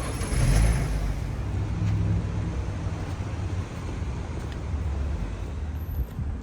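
Car driving, a steady low rumble of engine and road noise that swells briefly about half a second in.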